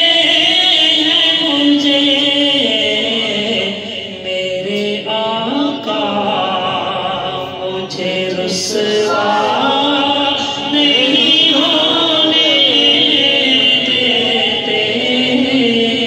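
A man singing a naat without instruments into a microphone, in long held notes that waver and bend.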